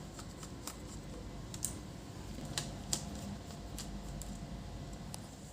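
Scattered light clicks and taps of laptop parts being handled during a display teardown. The sharpest come about one and a half, two and a half and three seconds in.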